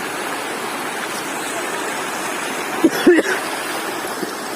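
River water rushing steadily. About three seconds in there is a short call with pitch, the loudest moment.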